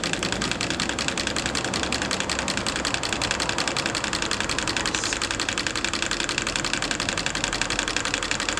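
Small 3D-printed alpha Stirling engine running on burner heat, its pistons and crank linkage giving a fast, even mechanical clatter.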